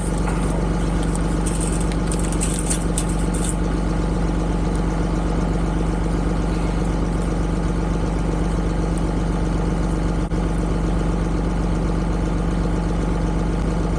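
John Deere 2038R compact tractor's three-cylinder diesel engine running steadily at a constant speed, with a few faint light ticks in the first few seconds.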